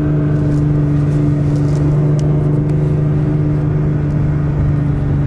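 Nissan GT-R's engine running with a steady low drone as the car creeps along at low speed, heard from inside the cabin.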